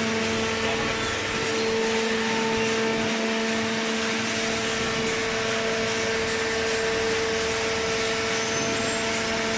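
Hydraulic baler running steadily, a constant hum with a higher steady tone above it over even machine noise.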